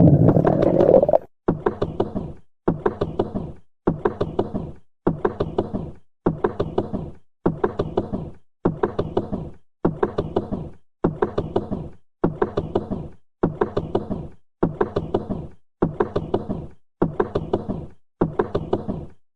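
A rabbit's stomach gurgling: about fifteen short bursts of several quick pops each, one roughly every second, with dead-silent gaps between them.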